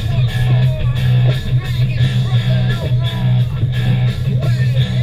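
Loud rock music with a dense, steady beat and guitar.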